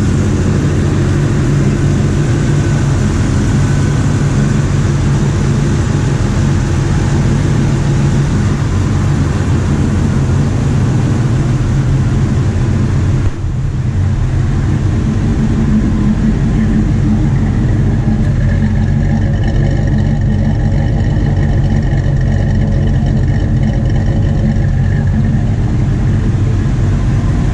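A 1984 Chevrolet C10's mildly built 350 small-block V8 idling steadily, freshly started after long storage in a shed.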